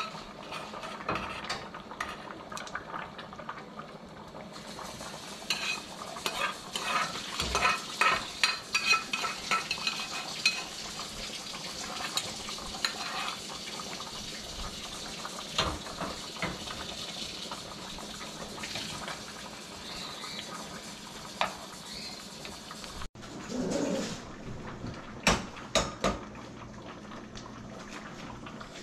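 A metal spoon scraping and clinking against pots as food is scooped from a small saucepan into a stockpot, in clusters of quick clinks, busiest in the first half and again near the end, over a steady hiss.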